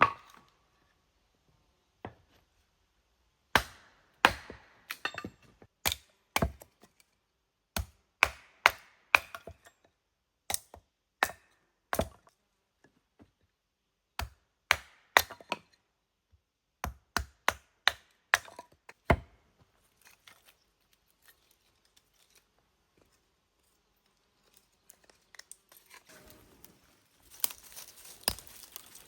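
A string of sharp chops from a blade striking wood, coming in short runs of two to four strokes with pauses between. A rustling, crinkling sound follows near the end.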